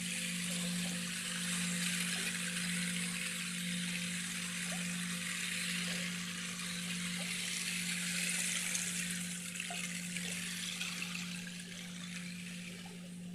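Running water, like a small stream, over a low steady hum that pulses slowly. The water thins a little near the end.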